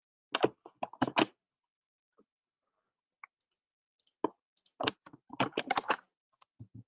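Computer keyboard typing in two short flurries of clicks and taps, the first about half a second in and the second from about four to six seconds in.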